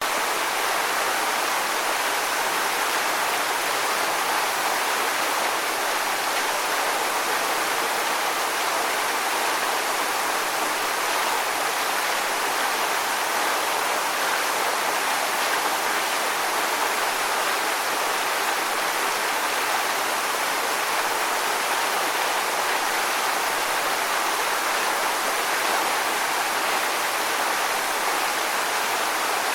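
Waterfall: a steady, even rush of falling water, with most of its energy in the mid and upper range and no distinct splashes or changes.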